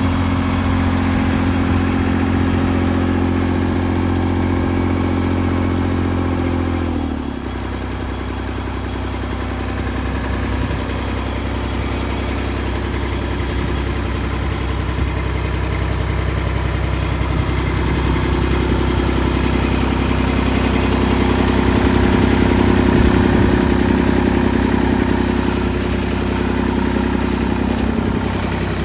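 Lincoln SA-250 welder/generator's Perkins D3.152 three-cylinder diesel engine running steadily. About seven seconds in, its speed drops in a short falling glide, and it settles into a lower, steady idle.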